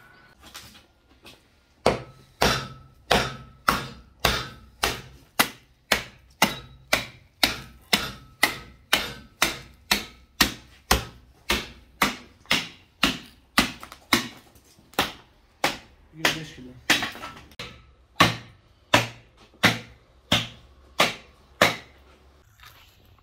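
Steady rhythmic chopping of a heavy blade hacking through a beef carcass and its bones, about two sharp blows a second, starting about two seconds in and stopping shortly before the end.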